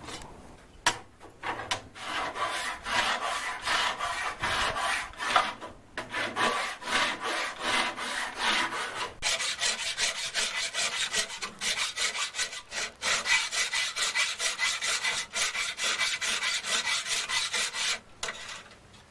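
Hand file rasping in fast back-and-forth strokes across a metal casting to flatten and clean it up, with a couple of brief pauses.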